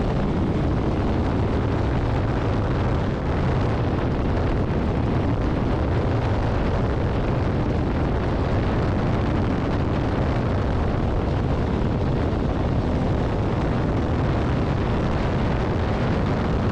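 Onboard sound of an open-cockpit race car at speed on a hill climb: the engine running hard under heavy wind rush over the microphone, loud and steady.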